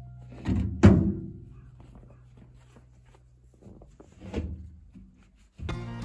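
Heavy thuds as an old bathtub is heaved and pushed onto the bed of a small flatbed truck: a loud knock about a second in and another about four seconds in. Background music plays under it, drops out midway and comes back near the end.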